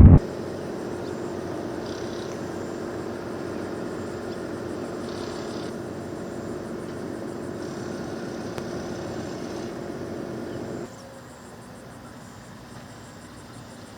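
A steady mechanical hum with a faint held tone, stepping down to a quieter hum about eleven seconds in.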